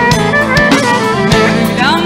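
Live band playing a Turkish folk-pop song, with a held lead melody over bass and regular drum beats. Near the end, a quick upward sliding run.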